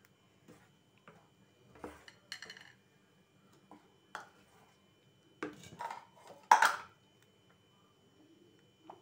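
A spoon stirring thick Schezwan sauce in a pan, knocking and scraping against the pan in scattered clicks, with a louder clatter about six and a half seconds in.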